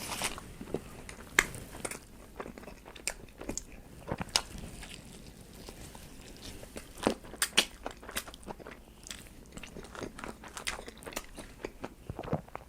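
Close-miked chewing of a cheese-sauced Italian beef sandwich: irregular wet mouth clicks and smacks, with a few louder ones.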